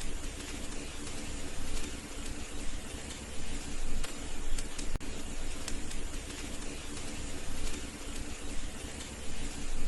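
Wood fire burning in a fireplace: a steady hiss with a few sharp crackles and pops.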